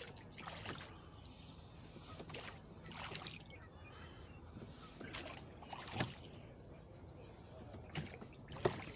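Oars working a rowboat at a steady stroke: a short splash and a knock with each stroke, in pairs about every two and a half seconds, over a light trickle of water along the hull.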